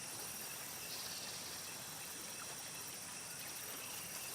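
Faint forest ambience with a steady high-pitched insect drone, like crickets or cicadas.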